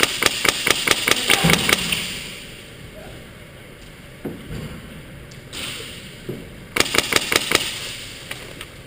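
Airsoft rifle fired in rapid strings of sharp cracks: one string in the first couple of seconds and a shorter one about seven seconds in, with scattered knocks between.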